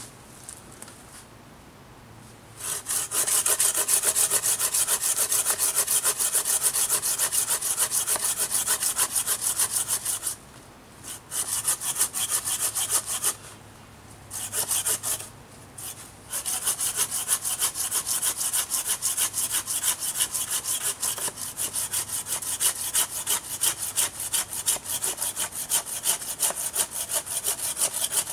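Hand saw cutting through a wooden pole in quick back-and-forth strokes. It starts a couple of seconds in, stops briefly twice around the middle, then saws steadily on.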